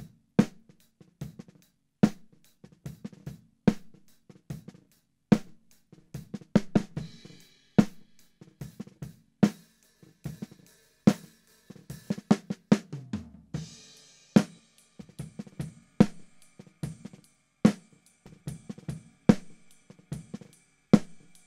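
Recorded snare drum track, with hi-hat and cymbal bleed, played back through an Atlas Pro Audio Leviathan 500-series opto compressor: a steady beat of snare hits, with a cymbal crash about two-thirds of the way in.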